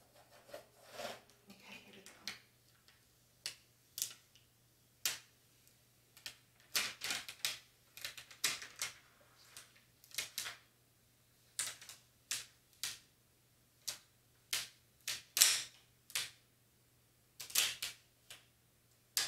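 Clear vinyl transfer tape scraped down with a scraper tool, then peeled slowly off glitter vinyl lettering on a chalkboard, crackling in irregular sharp clicks, about one or two a second.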